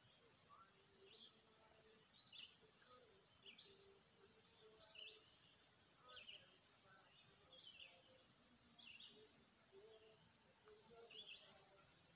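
A bird chirping faintly: a short high call, repeated about once a second, with fainter lower notes between, over a low background hiss.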